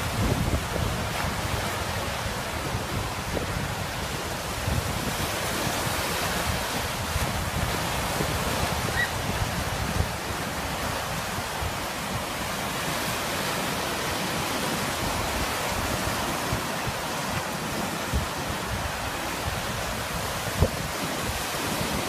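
Large waves on Lake Michigan breaking and washing up a sandy beach in a steady rush, with wind buffeting the microphone in low gusts, heaviest at the start.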